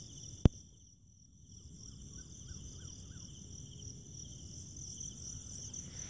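Night insect chorus: crickets trilling steadily at several high pitches. A single sharp click sounds about half a second in.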